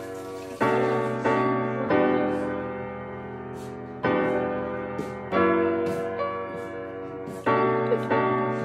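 Background piano music: chords struck every second or two, each left to ring and fade slowly.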